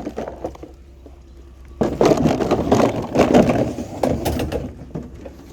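A scrapped wagon being handled and moved: a loud scraping, clattering rattle starting about two seconds in and lasting about three seconds, over a low steady rumble.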